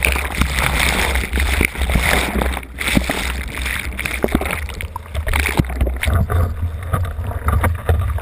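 Churning surf whitewater rushing and gurgling around a submerged waterproof camera, muffled, with a steady low rumble and scattered knocks against the housing.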